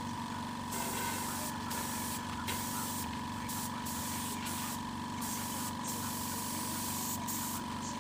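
Spray gun hissing in bursts as clear coat is sprayed onto a bicycle frame, the trigger let off briefly several times. Under it, an air compressor runs with a steady hum.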